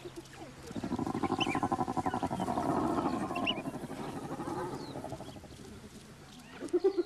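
Spotted hyenas and African wild dogs calling as they clash over food: a rapid, pulsing chorus of calls starts about a second in and fades after about four seconds, with a few short high chirps over it. A short burst of pulsed calls comes near the end.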